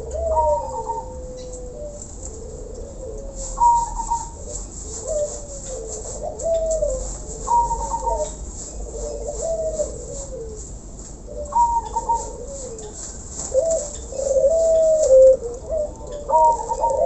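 Several caged doves cooing in overlapping phrases. Deeper wavering coos run throughout, and a short, higher note comes about every four seconds.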